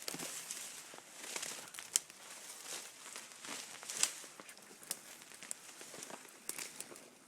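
Footsteps crunching and rustling through dry winter leaves and brush, with a few sharp snaps, the loudest about two and four seconds in.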